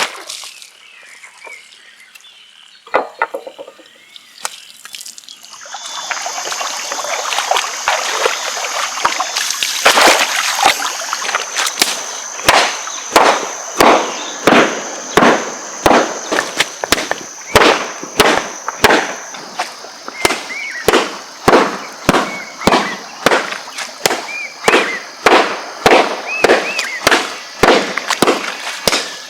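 Repeated hard strikes by hand, almost two a second and evenly paced, beginning about twelve seconds in after a stretch of crackling and rustling: the sound of pounding soaked hemp fibre to beat it into paper pulp.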